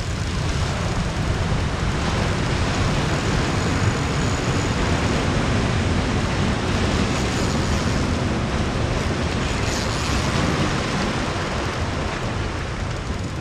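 Ocean surf washing over a rocky boulder shore: a steady wash of noise with a heavy low rumble underneath.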